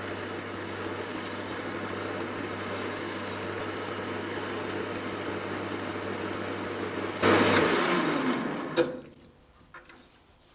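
Metal lathe running steadily while taking a light skim across the end face of a bar. About seven seconds in a sudden louder noise breaks in, then the machine winds down with a falling pitch and stops, followed by a few light clicks.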